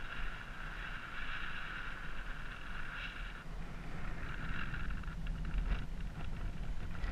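Paraglider in flight: wind rushing over the camera microphone, with a high, fast-pulsing variometer climb tone that cuts off about three and a half seconds in. Short scattered bits of tone follow as the glider banks into a steep turn.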